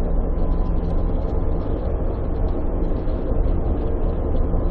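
ČKD Tatra tram running along its track: a steady running noise of wheels on rails and the car's drive, even in level throughout.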